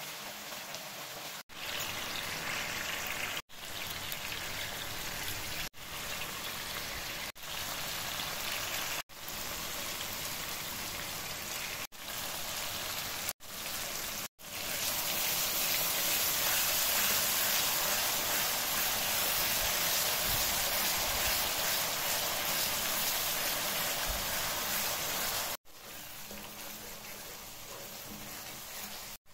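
Oil and spice masala sizzling as they fry in a steel pan. The sizzle breaks off abruptly several times in the first half, then runs loudest and unbroken for about ten seconds before dropping back near the end.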